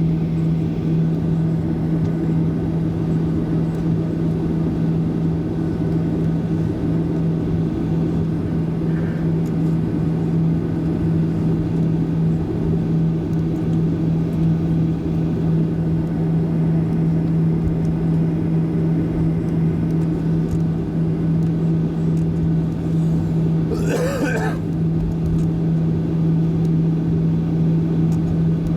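Steady jet airliner cabin noise while taxiing: a constant deep hum over a rumble from the engines and air system, with no rise in pitch. Near the end a brief, sharper sound with a wavering pitch cuts through once.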